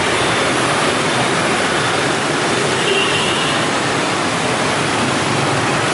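Steady, loud noise of dense motorbike and scooter traffic: many small engines and tyres blending into one even roar.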